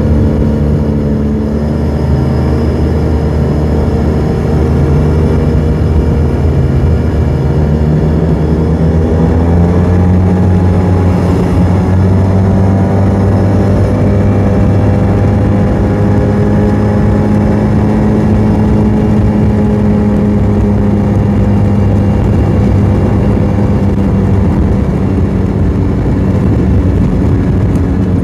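Motorcycle engine running at cruising speed under a steady rush of wind, heard from the rider's seat. About nine seconds in, the engine note rises as it speeds up, then holds steady.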